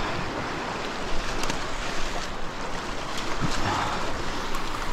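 Sea surf washing over a rock ledge, with wind on the microphone.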